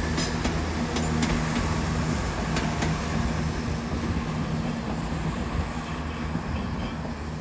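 Class 171 Turbostar diesel multiple unit pulling away: a steady low diesel engine drone that drops out about two seconds in, a few clicks from the wheels on the track, and the train noise slowly fading as it leaves.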